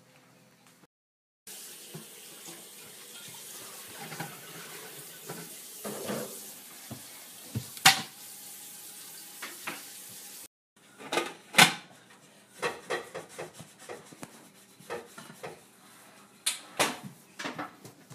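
A steady rushing hiss with a few knocks. After a cut comes a run of sharp clanks and taps: a toddler handling metal bowls and a countertop appliance such as a rice cooker.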